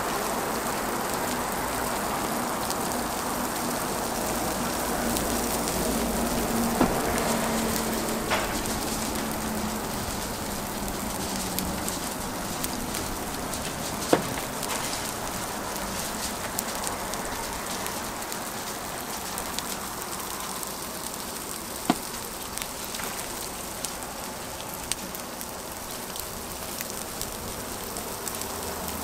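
Ham-and-egg patties sizzling on a hot flat-top griddle, a steady hiss, with a few sharp clicks now and then.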